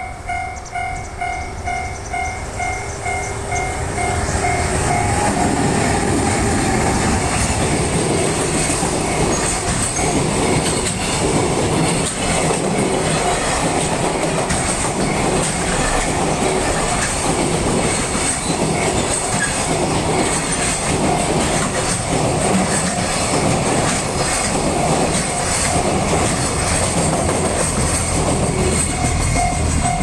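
A Japanese level-crossing alarm rings in a steady, even pulse. About four seconds in, a JR Freight EH500 electric locomotive and its long container train reach the crossing, and the rumble and clatter of the passing wagons cover the bell until it comes through again near the end.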